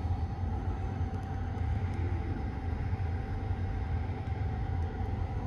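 Steady low rumble of a 285-series Sunrise Seto sleeper train running, heard from inside a compartment, with a faint steady hum above it.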